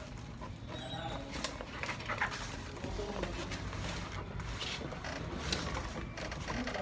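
Cardboard shipping box being opened by hand: flaps bent back, rustling and scraping, with scattered small knocks as a boxed solar panel slides out against the cardboard.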